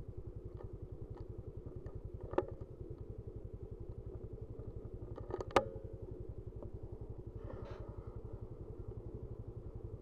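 An engine running steadily with a rapid low throb. A sharp click about two and a half seconds in, and a louder sharp crack about five and a half seconds in.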